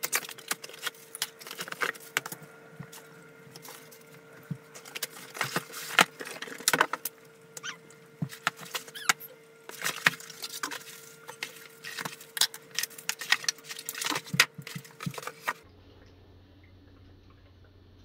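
Unboxing a cordless stick vacuum: cardboard carton, molded pulp tray and plastic-wrapped parts handled and set down, with many rustles, scrapes and light knocks. It goes quieter near the end.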